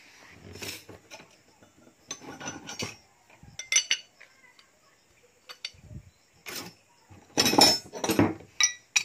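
Steel combination wrench clinking and scraping against a hydraulic safety relief valve cartridge as its nut is worked loose, in a series of separate metallic clinks with the loudest clanks near the end.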